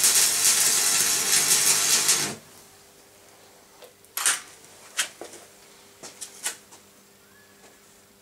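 Electric arc welding on a steel bar: a loud, dense crackle and hiss that stops abruptly about two seconds in. A few short, sharp clicks follow.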